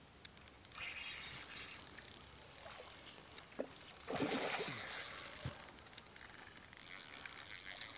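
Fishing reel being wound in rapid clicking runs while a hooked fish is played to the bank. About four seconds in the fish thrashes at the surface and makes a louder splash.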